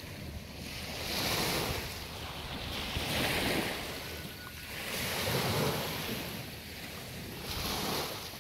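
Small waves breaking and washing up on a sandy beach, in surges about every two seconds.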